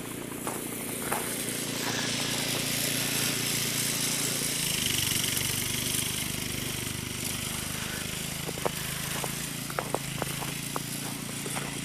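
An engine running steadily, its pitch shifting about five seconds in, with a few sharp clicks in the last few seconds.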